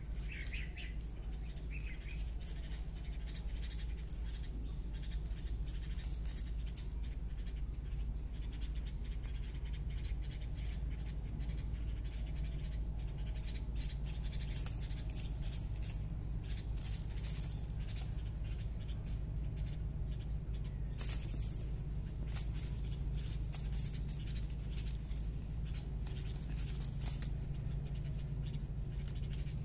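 Cat wand toy with a beaded spring wire rattling and jingling in short, repeated bursts as it is jiggled and batted at.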